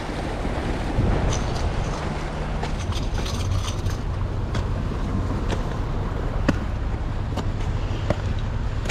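Steady low rumble of wind on the microphone and sea, with a few scattered sharp clicks and taps.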